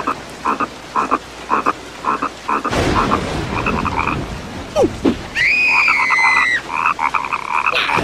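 Frogs croaking in an even rhythm of about two croaks a second, over a steady hiss. About five seconds in, a cartoon character gives a long, high-pitched cry.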